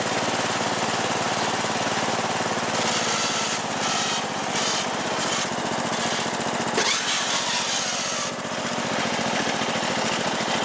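Riding lawn tractor's small engine running steadily under way, with fast, even firing pulses. A higher hiss comes and goes over it midway.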